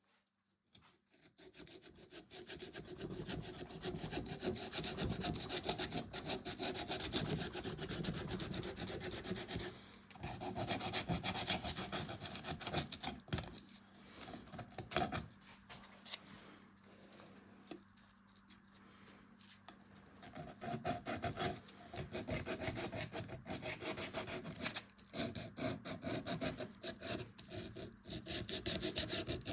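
Beech wood being scraped and abraded by hand, a dense run of quick rasping strokes that eases off for a few seconds about halfway through before picking up again.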